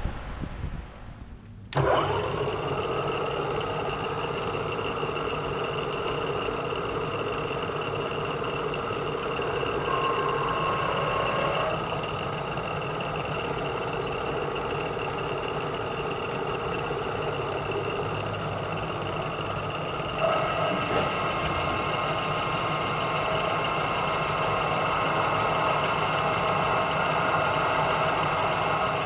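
Vertical milling machine with a roughing end mill side-cutting a bronze block: a steady machining whine with several held tones, starting abruptly about two seconds in. The tones shift about ten seconds in, and the sound grows a little louder with new tones about twenty seconds in.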